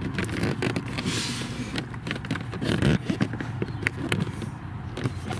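Plastic interior trim panel being pushed and forced into place against its clips: irregular creaking, knocking and clicking of plastic, with a short scrape about a second in.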